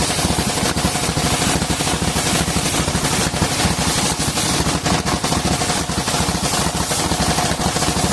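Engine driving a sawmill circular saw, running steadily with a rapid, even knock from its firing and a steady high whine. The owner says this engine is starting to lose power.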